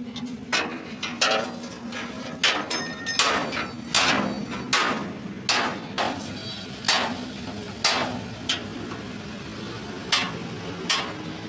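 Hand hammer striking metal on a truck cab, a series of sharp, irregular blows, about one or two a second, some with a brief metallic ring. A low steady hum runs underneath.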